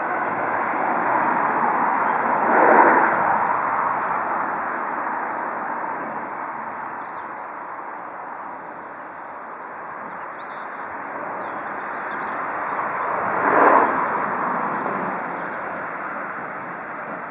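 Distant steam locomotive working at the head of a train, a steady rushing hiss of steam that swells louder twice, about three seconds in and again near the end.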